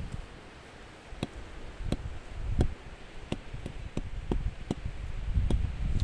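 Wind gusting on the microphone as a low rumble, with a run of sharp, irregularly spaced clicks.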